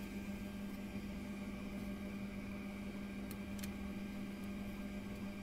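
Steady electric hum of fans and motors around a diode laser engraver, with a strong low tone and a soft hiss. Two light ticks a little past the middle, as thin plywood cut-outs are handled.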